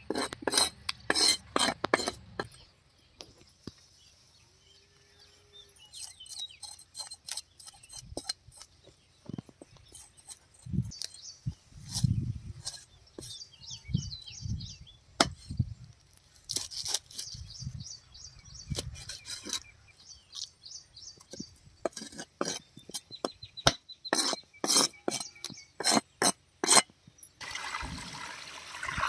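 Long steel knife scraping and striking a wooden chopping log as a small sardine is scaled and cut: irregular runs of sharp clicks and scrapes with a few dull knocks and short pauses. Near the end, water from a garden hose pours into a tub.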